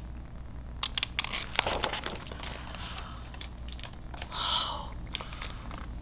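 Paper rustling and crinkling as a picture book's page is turned and handled, in a cluster of small crackles about one to two and a half seconds in. A brief soft hiss follows about four and a half seconds in.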